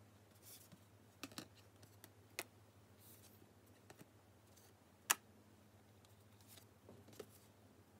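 Near silence with a faint low hum and a few short, scattered clicks, the sharpest about five seconds in.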